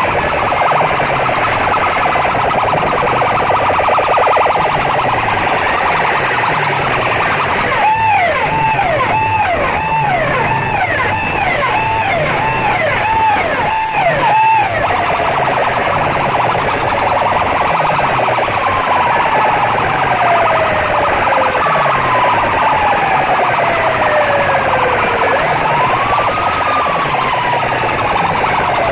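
Very loud DJ sound-system playback of siren effects over a pulsing bass beat. About eight seconds in, fast falling whoops come about twice a second for some six seconds, followed by slower, drawn-out falling glides.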